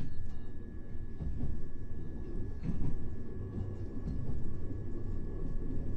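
Southern Class 377 Electrostar electric multiple unit running along the line, heard from inside the carriage. A low rumble of wheels on rail swells and eases, with a thin steady high tone above it.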